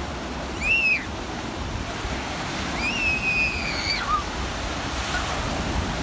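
Sea surf breaking and washing onto the shore, with wind rumbling on the microphone. Two high cries ring out over the surf: a short one about a second in, then a longer held one around three seconds in.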